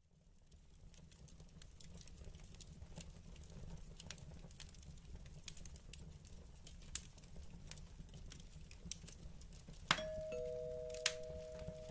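Wood fire crackling in a stove, scattered sharp pops over a low steady rumble. About ten seconds in comes a click and a two-note doorbell chime, the second note lower, both held to the end.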